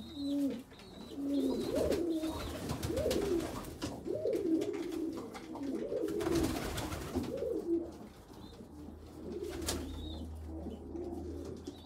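Domestic pigeons cooing in a loft: a run of repeated low, rising-and-falling coos about once a second, growing fainter in the last few seconds. A brief rustling noise comes about six seconds in.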